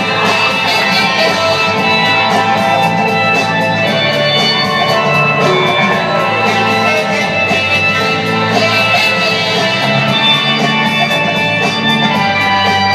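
Loud, steady music with guitar, playing without rapping.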